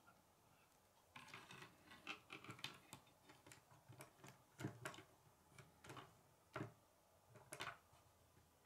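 Faint, irregular clicks and taps of plastic K'nex pieces being handled and knocked against a wooden tabletop, with a few louder knocks in the second half.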